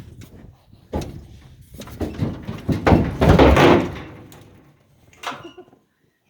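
Metal livestock gate being handled: a sharp clank about a second in, then a louder, longer rattling clang about three seconds in, and a lighter knock near the end.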